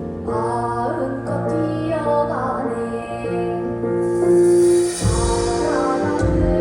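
Live Korean traditional (gugak) music: sustained melodic notes, some sliding in pitch. A hissy shimmer swells about four seconds in, followed by a low thud.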